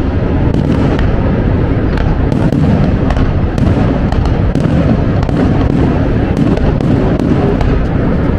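Aerial fireworks shells bursting in quick succession: a loud, continuous barrage of bangs with many sharp cracks throughout.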